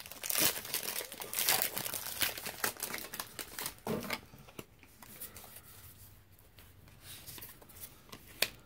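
Foil wrapper of a Pokémon trading card booster pack being torn open and crinkled, most densely in the first four seconds, then quieter rustling of the wrapper and cards.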